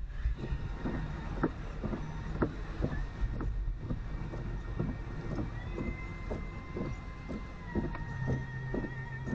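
Car driving in heavy rain, heard from inside: low engine and road rumble with irregular taps of rain on the body, several a second. A steady high tone sounds over it for the last few seconds.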